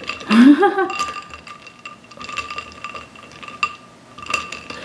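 Ice cubes clinking and knocking against a glass bowl as a small plastic doll is held and moved about in the ice water: scattered light clicks throughout. A brief vocal sound about half a second in.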